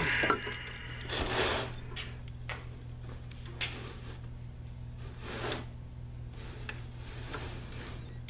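Handling noise from hands working at the chassis and camera: scattered short rustles and light knocks, over a steady low hum.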